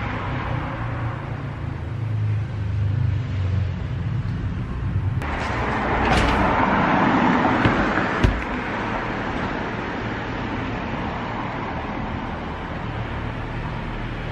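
Street traffic: a low engine rumble, then a vehicle going past, swelling and fading between about five and eight seconds in, with a sharp click near its end.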